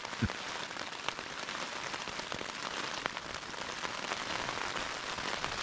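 Rain falling steadily on a tent, with a few faint clicks of single drops.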